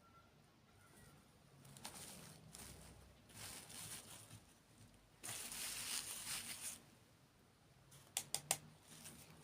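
Close-miked mukbang eating and food-handling noises: soft crinkly, crunchy sounds, the longest and loudest about five seconds in, then three or four sharp clicks near the end.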